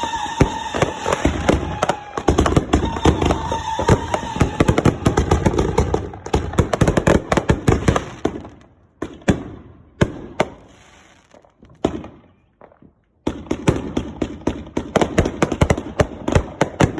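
Consumer fireworks going off in rapid, overlapping volleys of bangs and crackle, with a steady whistle-like tone under the first few seconds. The bangs thin out about halfway, go nearly quiet for a moment, then start again abruptly with rapid bangs.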